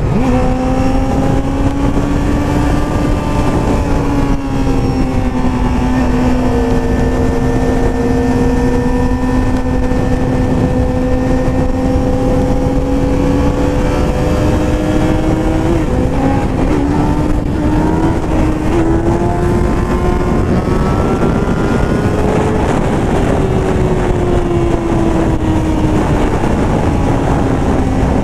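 Sportbike engine running at a steady cruise, with wind rushing over the helmet microphone. The engine note climbs gradually for several seconds about two-thirds of the way through, then eases back down.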